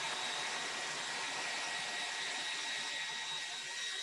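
A hair dryer runs steadily on one setting, a continuous rush of air with a thin, steady whine. It is being used to dry a fresh coat of chalk paint.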